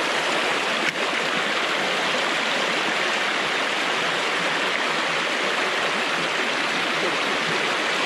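Mountain stream water rushing steadily, with a small click about a second in.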